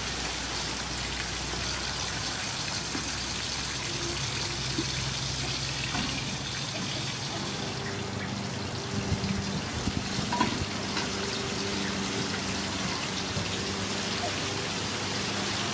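Whole fish shallow-frying in hot oil in a metal wok: a steady sizzle, with a few clatters of metal utensils and a pot lid partway through.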